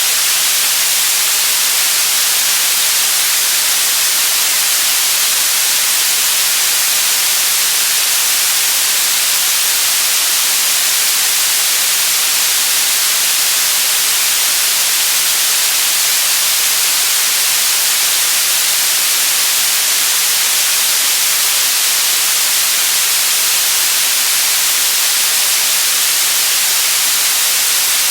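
Steady, loud static hiss, bright and even, weighted toward the high frequencies with little low end, unchanging throughout.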